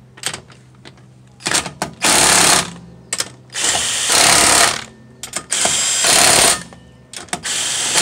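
20-volt cordless impact wrench tightening lug nuts on a car wheel: about four bursts of hammering, roughly a second each, with short blips of the trigger between them.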